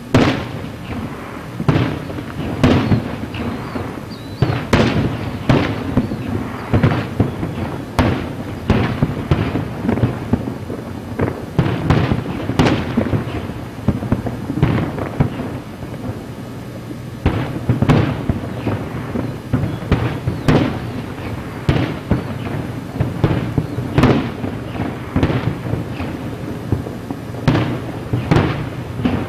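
Aerial fireworks shells bursting in quick, irregular succession, about one bang a second. Each sharp report trails off into a rolling echo, over a continuous low rumble.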